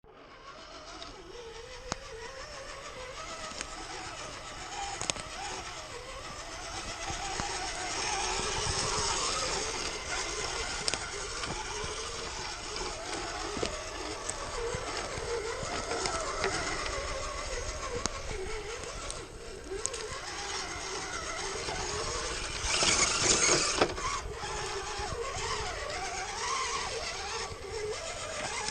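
Electric RC crawler truck being driven: its motor and gears whine, the pitch wandering up and down with the throttle, over a steady crunch of tyres on rough ground, which grows louder for a second or two around 23 seconds in.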